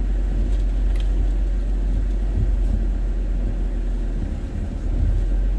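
Steady low rumble inside a parked van, with no distinct events and a brief slight dip near the end.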